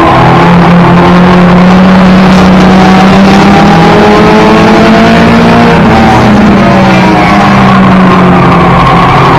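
Loud in-cockpit sound of a 1992 Toyota Celica GT's four-cylinder race engine running hard at high revs under road and wind noise. Its pitch dips briefly about six seconds in, as the driver lifts, and then climbs steadily as it accelerates again.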